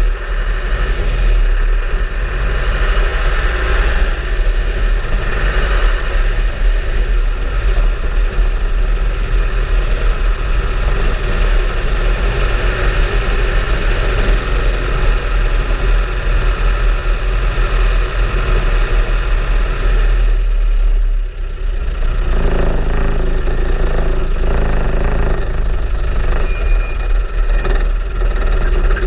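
Off-road vehicle's engine running as it drives along a muddy, rutted lane, heard from a camera mounted on the vehicle, with a heavy low rumble throughout. The sound drops briefly about two-thirds of the way through, then carries on as before.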